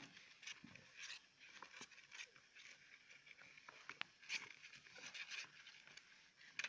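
Faint, irregular high squeaks and scratchy clicks from a mother hamster and her young pups stirring in a plastic tub.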